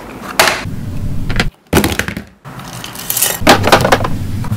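Hard plastic items clattering and knocking together as they are rummaged and moved around in plastic containers of hobby supplies and paint bottles. The sound comes in quick clusters of clicks, with two short breaks.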